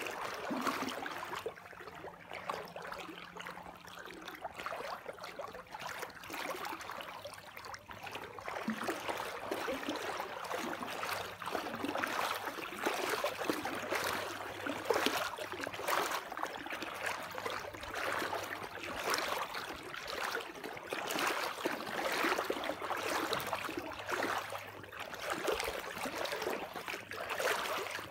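Water flowing and splashing steadily, like a stream running hard, with a faint low hum underneath; it grows somewhat louder after the first several seconds.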